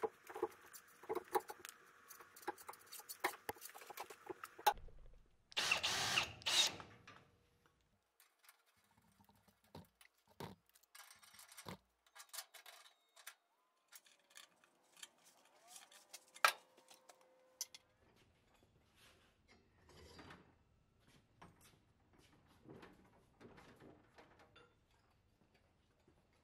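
Hand work on threaded black iron air-line pipe: scraping of the threads and clinks and knocks of metal fittings and tools, on and off. A louder rasping burst comes about six seconds in, then sparser single clicks.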